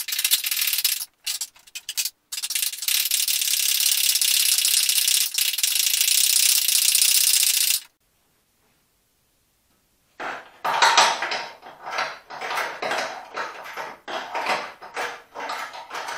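Hand ratchet wrench working a bolt on the car's front bar mounting: a long run of rapid ratcheting clicks for about eight seconds, then after a pause slower, separate ratchet strokes.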